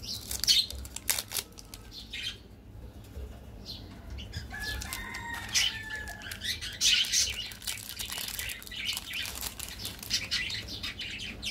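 Foil-lined plastic candy wrappers crinkling and tearing as they are peeled open by hand, in irregular crackles, loudest about half a second in and again about seven seconds in.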